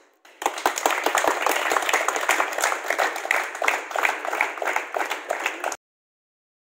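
Group applause: many hands clapping fast and irregularly, cutting off abruptly near the end.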